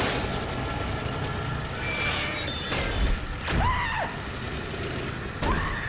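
Horror-film sound mix: a steady low rumble with a few sharp hits about two to three seconds in, then a woman screaming about three and a half seconds in, with another short cry near the end.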